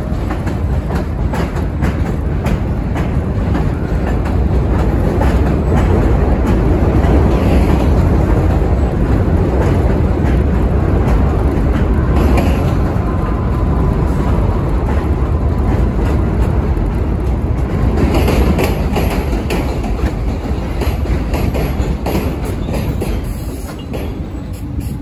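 New York City subway train running along an elevated station platform close by: a loud, continuous rumble of steel wheels clattering over the rail joints. A faint high whine comes in briefly around the middle, and the noise eases off near the end.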